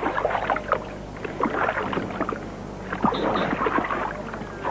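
Red deer stag wallowing in a shallow pool, with irregular splashing and sloshing of water as it lies down and rolls.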